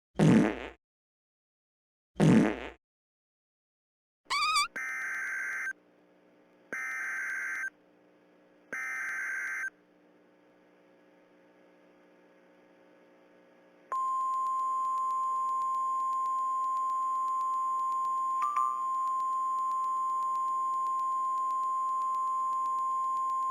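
Emergency Alert System tones: two short loud sweeps and a rising chirp, then three one-second bursts of the warbling SAME digital header, followed by a long, steady single-pitch attention tone. Together they signal that a severe thunderstorm warning is about to be read.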